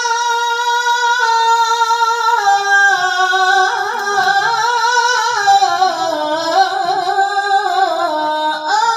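A woman reciting the Qur'an in melodic tilawah style, holding one long note and then drawing it out in wavering ornamental runs that step downward in pitch, all in a single unbroken breath.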